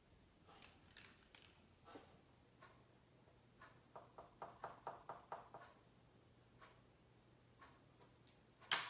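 Faint scattered clicks, then a quick run of about eight light taps at about five a second around the middle, and one sharper, louder click near the end.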